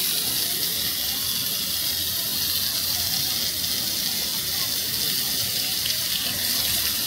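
A steady high-pitched hiss that stays even throughout, over a faint low rumble.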